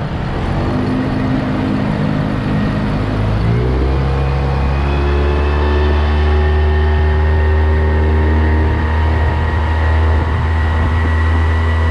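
Bass boat's outboard motor running under throttle, its pitch climbing about a third of the way in as the boat speeds up, then holding steady at running speed, with rushing wind and water noise.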